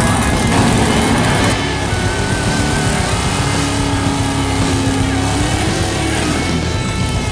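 1957 Chevrolet pro street drag car's engine running loud; from about a second and a half in it is held at high revs through a burnout, its rear tyres spinning in smoke.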